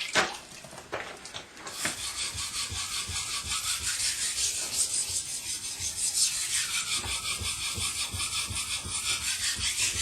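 Chipped steel knife blade ground by hand on a wet 1000-grit water stone: a steady rhythm of quick scraping strokes, starting in earnest about two seconds in. The stone is cutting the steel, grinding the chips out of the edge.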